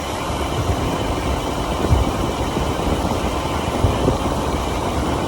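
Motorcycle engine running with a steady low rumble, along with road noise. There are brief low thumps about two and four seconds in.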